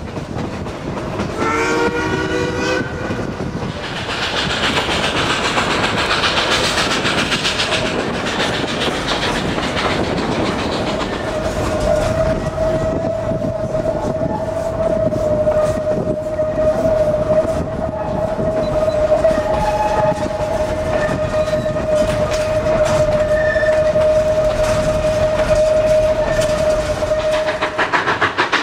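Narrow-gauge steam locomotive and train running, with a short blast on its chime steam whistle about two seconds in. Loud hissing steam follows, then a long steady high-pitched squeal over the beat and rumble of the moving train.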